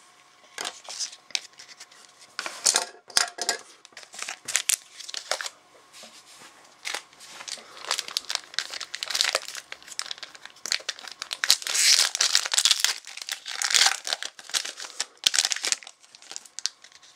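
Trading card pack wrapper being crinkled and torn open, a long run of sharp crackling rustles that grows densest about eight seconds in.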